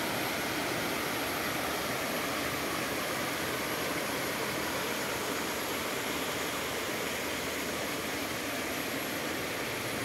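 Steady rush of water pouring over broad rock shelves and boulders in a shallow, cascading waterfall.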